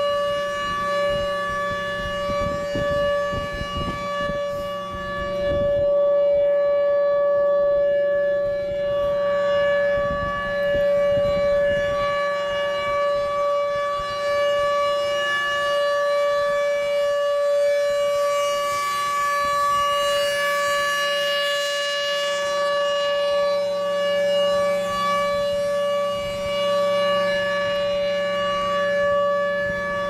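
Federal Signal Thunderbolt 1000 warning siren sounding one steady, held tone at full pitch, its loudness swelling and fading gently as the horn rotates: a routine test of the outdoor tornado warning siren.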